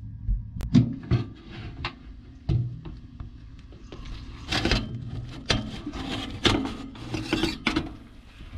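A metal baking tray handled in an Oster toaster oven, sliding and knocking against the rack and door: a run of irregular clicks, knocks and short scrapes over a low steady hum.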